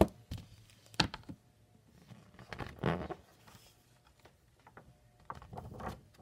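Handling noises from a hardcover picture book being moved and its pages turned close to the microphone: a few sharp knocks near the start and about a second in, then scraping rustles about three seconds in and again near the end.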